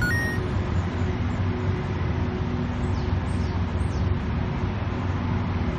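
City street traffic: a steady rumble of idling and passing cars and taxis, with a few faint high squeaks about three seconds in.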